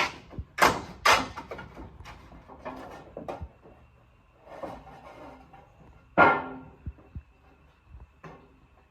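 Several sharp knocks and clatters that ring briefly, the loudest about six seconds in, with a faint steady high tone from about halfway.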